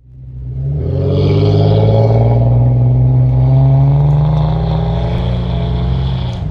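Vehicle engine running under steady throttle: a low drone that fades in over the first second, its pitch climbing slightly as it pulls.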